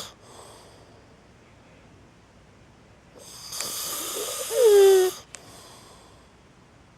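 A man snoring in his sleep: after a quiet pause, one long snoring breath about three seconds in ends in a loud honk that falls in pitch, then quiet breathing.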